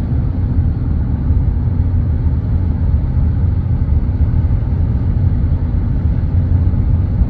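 Steady low rumble of road and engine noise heard from inside a moving vehicle.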